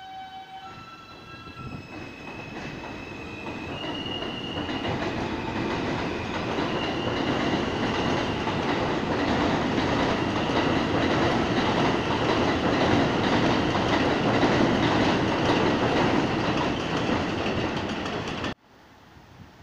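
New York City Subway train pulling out of an elevated station. Its electric traction motors whine in a series of rising stepped tones as it accelerates, and then the wheels running on the elevated track grow steadily louder. The sound cuts off suddenly near the end.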